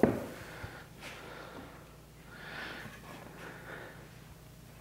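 A clamp and wooden boards handled on a workbench: a sharp knock at the start, then a soft rushing noise about two and a half seconds in, over a low steady hum.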